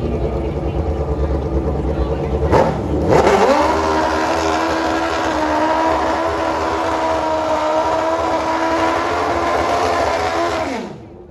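A drag racing vehicle's engine revving up sharply about three seconds in, then held at a steady high pitch for several seconds before falling away and cutting off near the end.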